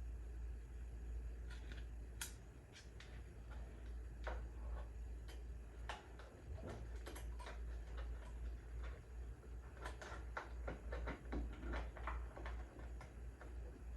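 Scattered light clicks and taps of plastic tail-light parts being handled and fitted, coming thicker about ten seconds in, over a steady low hum.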